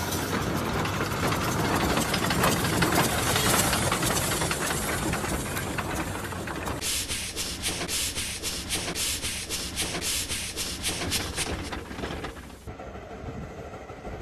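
Shay geared steam locomotive venting steam from its open cylinder cocks: a loud, steady hiss. About seven seconds in it gives way to a rapid, even chuffing of about three beats a second, which drops to a much quieter sound near the end.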